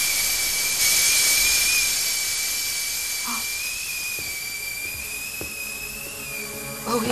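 Stovetop pressure cooker whistling as steam escapes through its valve: one steady high whistle over a hiss of steam, slowly fading.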